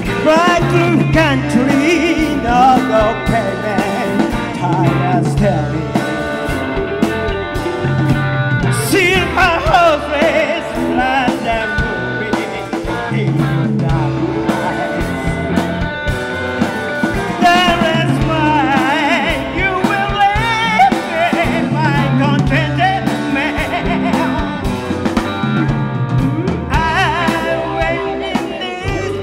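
Live rock band playing: overdriven electric guitars, bass guitar and drum kit, with a male lead voice over a bass figure that repeats about every two seconds.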